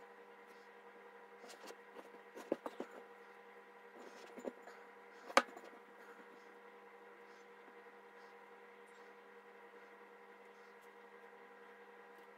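Hands mixing and squeezing bread dough in a ceramic bowl: a few soft knocks and clicks, the sharpest about five seconds in, over a steady hum.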